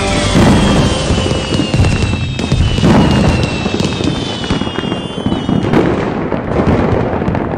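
Fireworks going off: dense crackling with several deep booms, and high whistles that slowly fall in pitch. Music fades out at the start.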